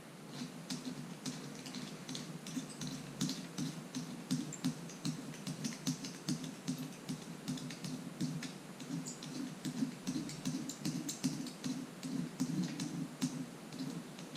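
Razor blade held upright scraping cured windshield-repair resin off the glass, in quick, irregular short strokes, several a second.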